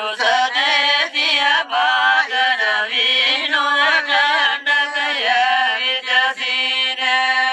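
Men singing a Gojri bait (folk verse) in a chanting style. The melody bends and ornaments over a steady low note held underneath.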